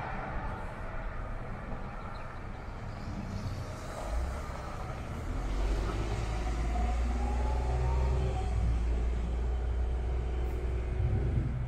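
Low rumble of a passing motor vehicle, building about four seconds in and holding to the end, with a faint rising whine in the middle.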